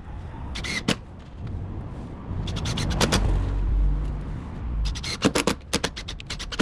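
Old wooden fence boards being pulled out: scraping and rubbing of wood, with scattered sharp knocks and a quick run of knocks near the end.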